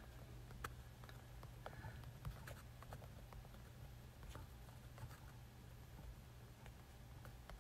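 Near silence: room tone with a steady low hum and faint, scattered clicks and taps.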